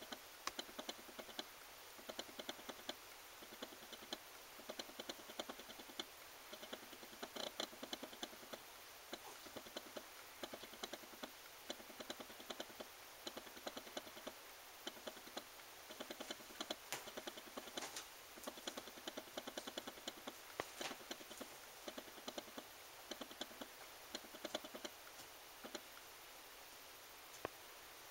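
Faint, quick clicking and rustling from two cats tussling and grooming each other on a quilted bed, coming in short bouts every second or two over a steady hiss.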